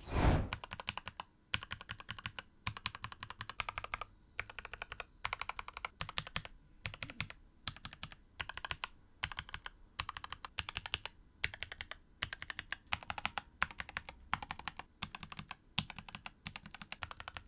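Mechanical keyboard with sculpted-profile keycaps being typed on, in bursts of rapid keystrokes separated by short pauses.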